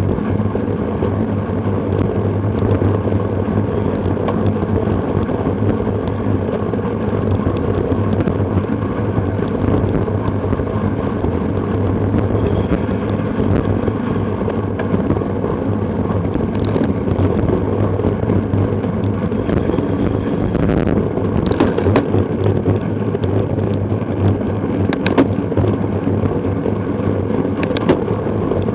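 Steady wind rush and road noise on a riding cyclist's action-camera microphone, with a few sharp clicks in the second half.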